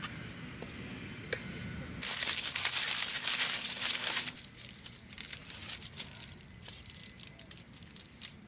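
A hissing noise of about two seconds, followed by the irregular crinkling and rustling of a food wrapper being handled and opened.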